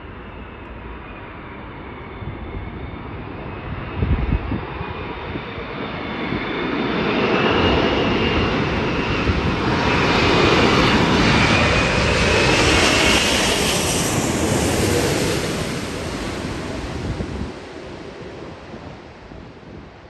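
Airbus A380 on final approach passing low overhead: the rumble and high whine of its four jet engines build up, hold loud for several seconds, then fade away. A brief thump about four seconds in.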